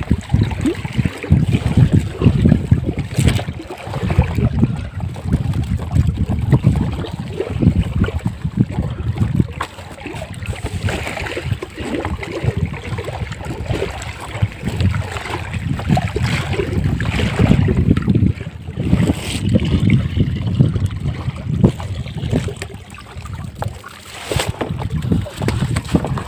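Wind buffeting the microphone in uneven gusts, over water lapping against a boat's hull, with a few sharp knocks.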